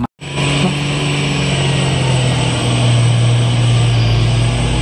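Diesel engine of a Hino 500 tanker truck running under load as it pulls through mud, a deep steady drone that cuts in suddenly and drops slightly in pitch about halfway through.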